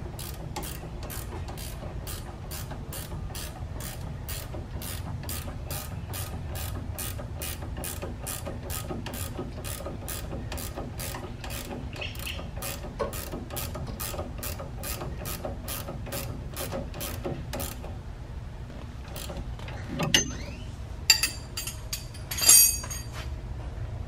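Hand ratchet clicking at a steady two to three clicks a second as it tightens the top nut of a sway bar end link. The clicking stops about three quarters of the way through, followed by a few louder knocks.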